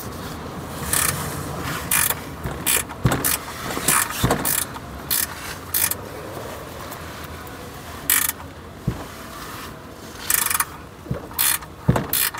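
A 10 mm ratcheting spanner clicking in short, irregular runs as it is worked back and forth on a thread tap. The tap is cutting a new sump-plug thread into the sump's steel insert.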